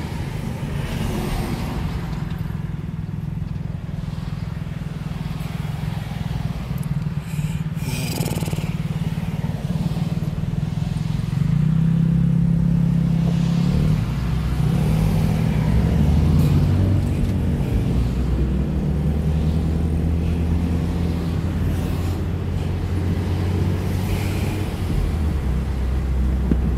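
Car engine and road noise heard from inside the cabin, a steady low drone. About twelve seconds in it grows louder and the engine note rises and falls for several seconds before settling again.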